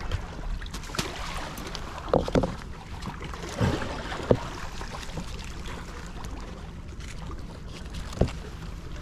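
Wind on the microphone and sea water washing among shore rocks, with a few short knocks and scrapes from a rope being handled between the rocks.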